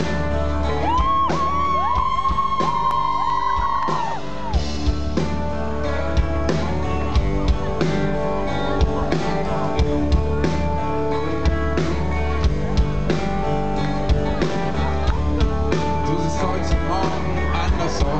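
Rock band playing live, guitars over a steady drum beat, with a high held note about a second in.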